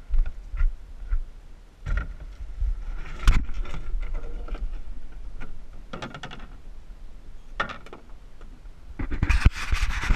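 Knocks and clunks of a canoe being set down and handled on a rock shore. Near the end comes a loud, rough scraping of about a second and a half as the hull slides over the rock.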